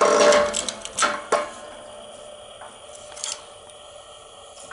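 A shop press being worked to press a bearing onto a Dana 30 differential carrier: a loud run of metallic clicks and scraping over the first second and a half, then a few faint clicks over a quieter steady background.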